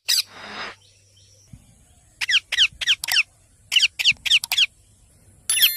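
Baby Indian ringneck parrot squawking: short, sharp calls that fall in pitch, given in quick runs of about four, with a rasping burst at the very start.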